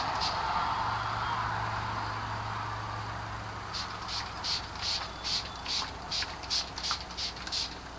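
Rhythmic scraping strokes, about two or three a second, beginning about halfway through after a steadier hiss.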